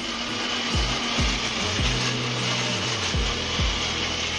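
Electric mixer grinder running steadily, grinding green chillies into a paste, with a steady high whine over the grinding noise. Background music with a regular beat plays underneath.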